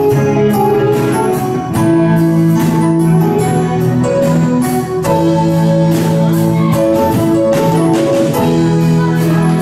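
Live band playing an instrumental passage: guitars holding chords over drums keeping a steady beat, with no singing.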